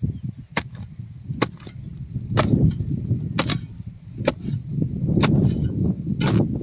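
Short-handled iron hand hoe chopping into dry, clumpy soil. About seven sharp strikes come roughly once a second, some followed by a quick second click. Between them is the low, scraping rustle of loose earth being dug.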